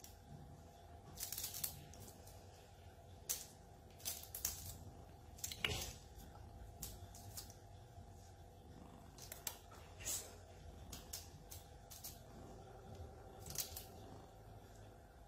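Faint scratchy rustles and light ticks, irregular and scattered, with the sharpest one about halfway through, over a low steady hum: a feather wand toy being waved and batted at by kittens.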